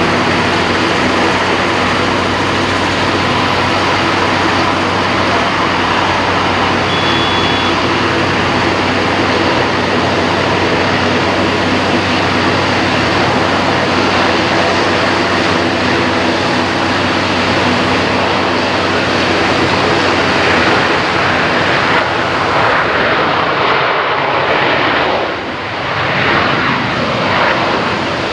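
Jet engines of a Himalaya Airlines Airbus A320 on approach and landing: a steady, loud rushing noise with a low hum underneath, wavering and dipping briefly near the end.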